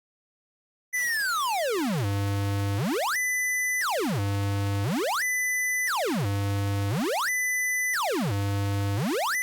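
Synthesized tone generated from a mathematical shape, silent at first and then cycling about every two seconds: a high pure whistle glides down to a low, rich buzz, holds, then sweeps back up to the high tone. The pattern repeats four times.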